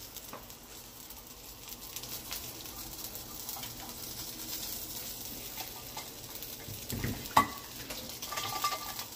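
Sausages and diced potatoes with peppers sizzling and crackling steadily in frying pans, with a single sharp knock, like a utensil or pan on the stove, about seven seconds in.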